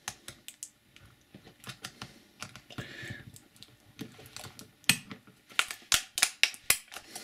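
Fingers picking and scratching at the tape on a small taped-up plastic capsule, a run of sharp plastic clicks and ticks that come faster and louder in the second half, with a short scrape about three seconds in.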